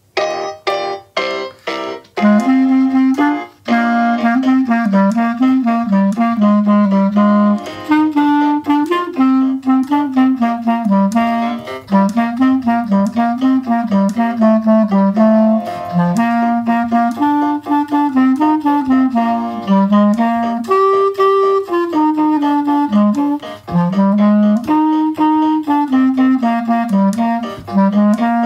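Clarinet playing a quick melody. It opens with a few short, detached notes, then moves into steady running notes.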